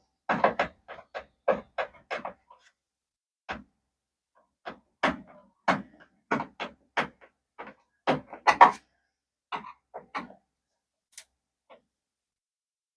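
Irregular clicks and light knocks of hand tools and small parts being handled while a radio-control model's landing gear is taken off, thinning out near the end.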